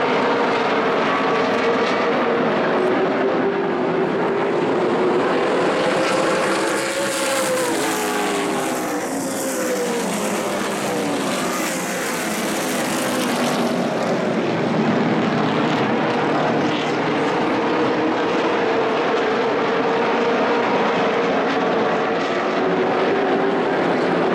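Several late model stock car V8 engines racing around the oval under power, their pitch rising and falling as the cars pass. Between about six and fourteen seconds in a hiss rises over the engines as the pack goes by, then it settles back to the steady drone of the field.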